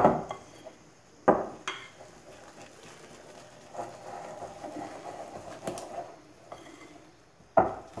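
Batter being worked by hand in a glass mixing bowl, with three sharp knocks of the bowl: at the start, about a second in, and near the end. Between them comes a quieter rustle of mixing.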